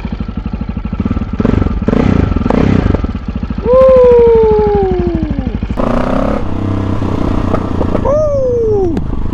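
KTM 640 Adventure's single-cylinder LC4 engine idling with an even pulse of about a dozen beats a second. Over it come two loud falling calls: a long one starting about four seconds in and a shorter one near the end.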